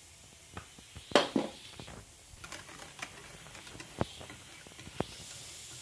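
Flour sifted from a plastic sieve into cake batter, with scattered taps and knocks of the sieve, the loudest just over a second in. Then a wire whisk stirs the batter, with a few sharp clicks against the ceramic bowl.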